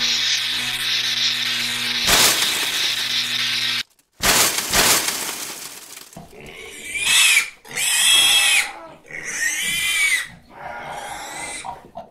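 Sound effects: a buzzing electrical hum with crackling, broken by a crash about two seconds in, which cuts off suddenly near four seconds. After a burst of noise come four high-pitched squeals, each under a second long, rising and falling in pitch.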